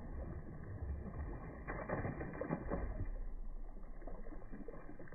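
Baitcasting reel being cranked on a lure retrieve: irregular small clicks, busiest about two seconds in, over a low rumble.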